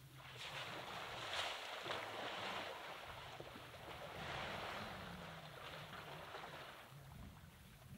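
African elephant sloshing and splashing muddy water as it stirs the wallow with its trunk. The rushing swells twice and fades near the end.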